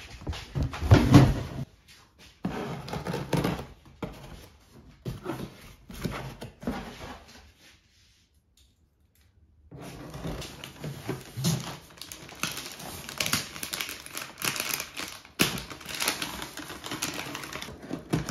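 Cardboard delivery boxes being handled: carried, set down and opened, with knocks, scraping and rustling of cardboard, and a heavy knock about a second in. Near the end a cutter slices through the packing tape. There is a break of near silence about eight seconds in.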